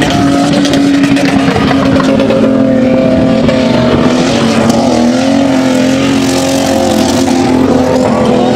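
SUV engine held at high revs under load as the vehicle drives across a steep sand dune face, a steady engine note that drops a little in pitch and wavers briefly about halfway through.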